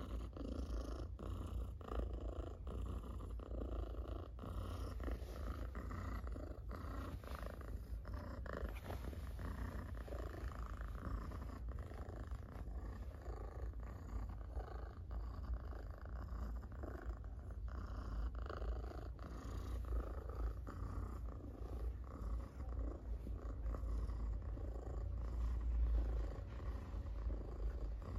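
Domestic tabby cat purring loudly and steadily while being stroked on the head, chin and back.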